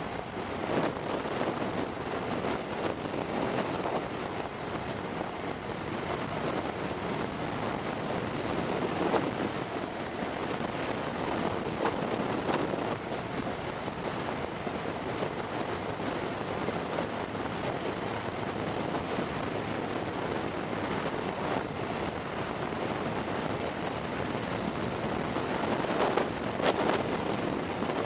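Wind rushing and buffeting over the microphone of a camera on a moving motorcycle at road speed, a steady roar of wind and road noise with gusts swelling louder now and then, strongest near the end.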